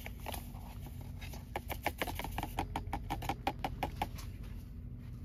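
A spoon stirring hot chocolate in a stainless steel camping mug: a quick run of light metal clinks, about six a second, from about a second in until about four seconds in.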